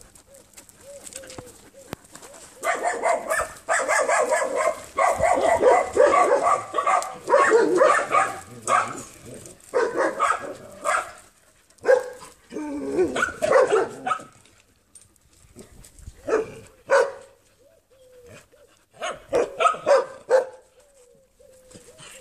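Dogs barking in rapid, overlapping bursts for several seconds, then in scattered short barks.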